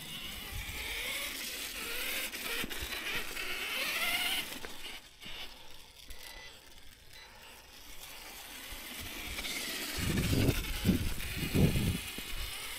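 Losi LMT Grave Digger 1/10 RC monster truck driving off on a 2S battery: the brushless motor's whine rising and falling with the throttle over drivetrain and tyre noise, with a few louder low swells near the end.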